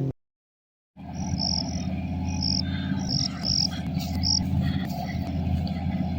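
Insects chirping in short, high, repeated bursts over a steady low rumble. The sound starts after a second of dead silence.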